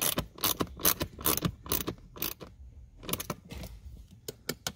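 Hand ratchet clicking in quick even strokes, about four a second, as it turns a small mounting screw through a socket extension. The clicking pauses briefly a little past halfway, then comes back as scattered clicks with light metal rattling.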